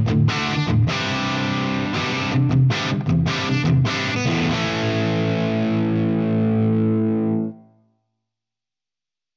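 Epiphone Korina Explorer electric guitar played through an overdriven Tonex amp profile: a riff of chords and single notes, then a chord left to ring for about three seconds before it is cut off suddenly.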